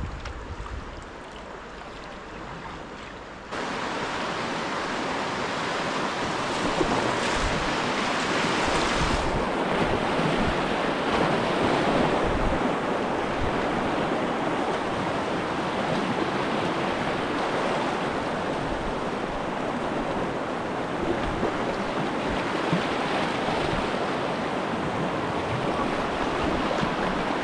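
Rushing whitewater of a river rapid on the Tuckasegee, a steady noise that jumps suddenly louder about three and a half seconds in.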